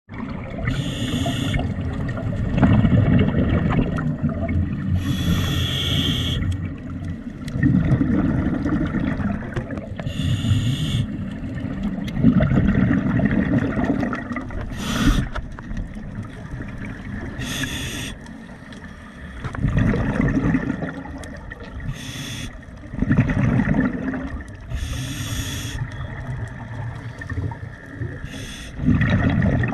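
Scuba regulator breathing heard underwater: a short hiss every few seconds as the diver inhales, with low rumbling bubbles of exhalation in between.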